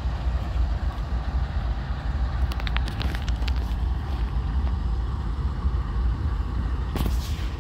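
Norfolk Southern diesel locomotives running, a steady low rumble with wind buffeting the microphone, and a few brief clicks and a crackle near the end.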